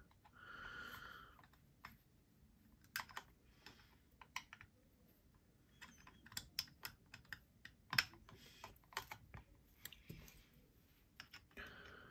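Faint, scattered small clicks and taps of Torx drivers seating in and turning the scale screws of a fixed-blade knife. A soft breath or murmur comes near the start.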